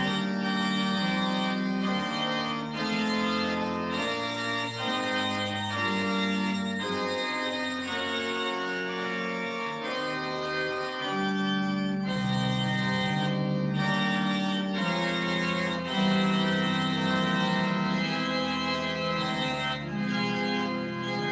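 Church organ playing slow music of held chords, the notes and bass changing every second or two.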